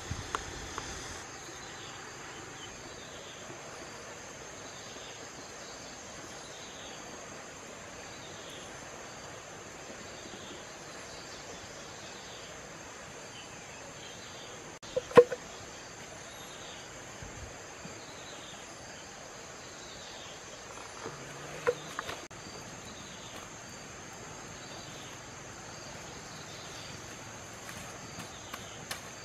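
Steady drone of insects, with a short falling chirp repeating about once a second. Two sharp knocks stand out, one about halfway through and one about two-thirds of the way through.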